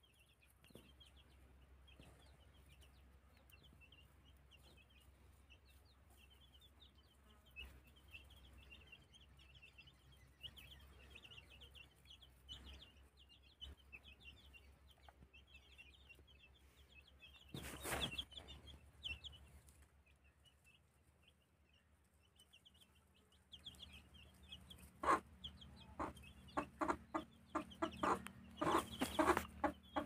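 Desi chicks peeping continually in high, short chirps while a desi hen clucks, with a run of louder short clucks in the last five seconds.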